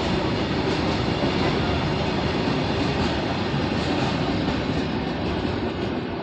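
Freight train rolling past on the rails: a steady heavy rumble with faint ticks of the wheels, easing slightly near the end.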